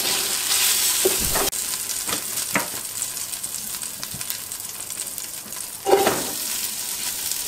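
Hot olive oil sizzling steadily in the bottom of a large stainless steel stockpot, with a few light scrapes of a utensil against the pot; the sizzle drops suddenly about one and a half seconds in. About six seconds in, a short louder clatter and surge of sizzle as the first pieces of chopped onion drop into the oil to fry.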